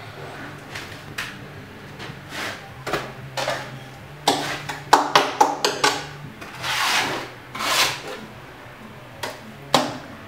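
Plastering tools working earth plaster: a quick run of scrapes and knocks near the middle, then two longer swishes, then two sharp knocks near the end, over a steady low hum.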